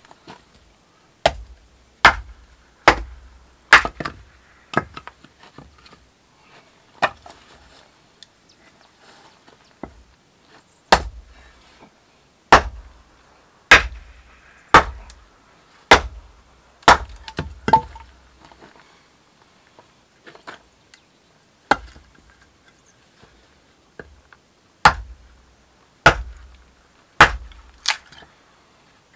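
Hand-forged axe chopping and splitting small logs into kindling on a wooden chopping block: about twenty sharp wooden chops, some in quick runs of two or three, with short pauses between.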